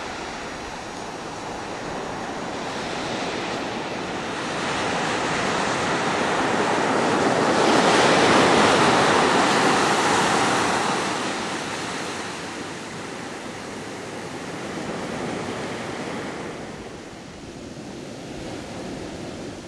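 Ocean surf washing onto a sandy beach: a steady rushing wash that swells to its loudest about halfway through, then slowly dies away.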